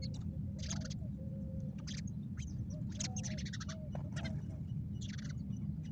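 Birds calling at a feeding spot: repeated low cooing calls mixed with bursts of high chirping, over a steady low rumble.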